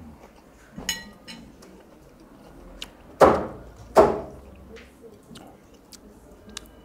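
A light clink of dishes about a second in, then two loud, heavy chops about three quarters of a second apart from a cleaver cutting roast meat on a block.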